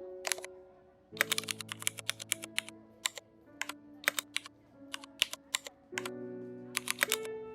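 Computer keyboard typing in irregular bursts of quick keystrokes, a fast run early on and shorter clusters later, over background music with held notes.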